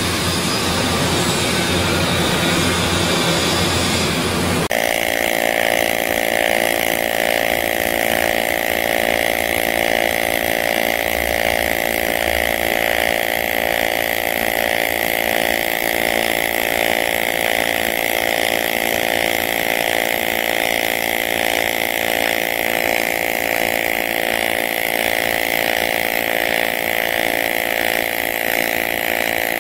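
AC TIG welding arc on aluminium pipe with a steady, unchanging buzz. A rougher, noisier sound fills the first few seconds and switches abruptly to the buzz about five seconds in.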